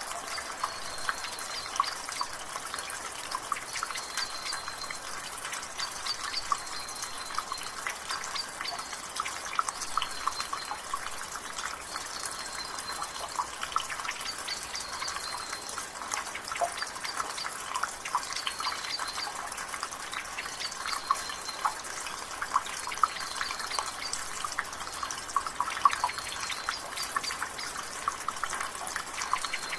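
Rain and drizzle with water dripping from a gutter: a dense, steady patter of drips and splashes. A bird repeats a short high call every second or two over it.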